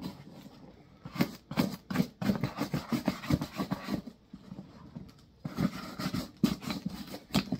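Small stiff hand brush scrubbing the leather of a boot in quick short strokes, about three a second, with a pause midway. The leather is being cleaned and scuffed before grease is worked in.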